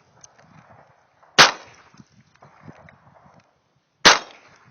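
Two shots from a .45 pistol, about two and a half seconds apart, each a sharp crack with a short echoing tail.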